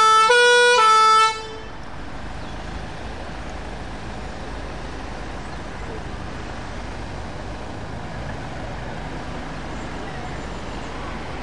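Two-tone emergency horns on an Iveco van, switching between two pitches about twice a second, cutting off about a second in. After that the van's engine runs with a steady low rumble.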